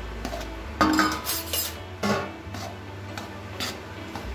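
Metal spatula scraping and stirring a crumbly wheat-flour and jaggery-syrup churma mixture against a metal kadhai, in irregular strokes, the loudest about a second in.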